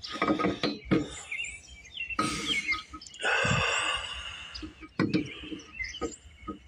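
Chickens and small birds calling and chirping, with a longer call about three seconds in, over a few light metal knocks and clicks as a small-engine flywheel is worked onto its crankshaft.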